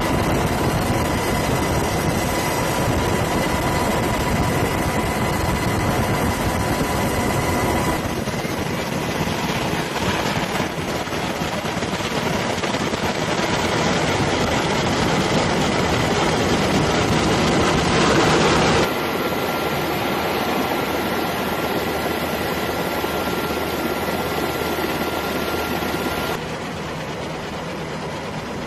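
Steady aircraft engine and airflow noise from a helicopter in flight, with a thin steady whine over it; the sound changes abruptly three times.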